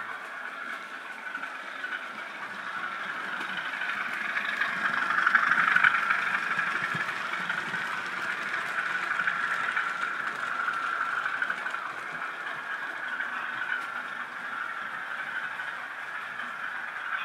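Bachmann model train running past on the layout's track with a steady hum. It swells to its loudest about six seconds in as it goes by, then settles to a steadier, quieter run.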